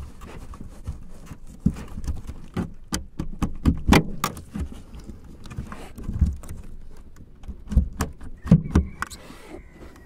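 Plastic interior trim around an Audi's third brake light being pried and pulled off its clips: irregular clicks, snaps and knocks, with low thumps as the panel is handled.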